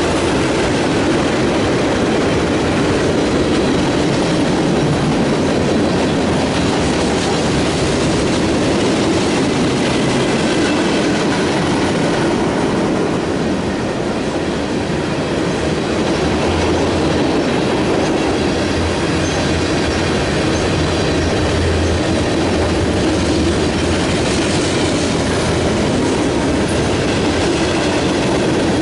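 A train rolling past at steady speed: the continuous noise of its cars and wheels running on the rails, unbroken for the whole half minute.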